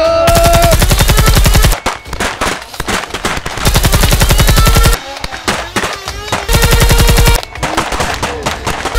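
Automatic-gunfire sound effect laid over toy blasters firing: three bursts of rapid machine-gun fire, each about a second or more long, with music underneath.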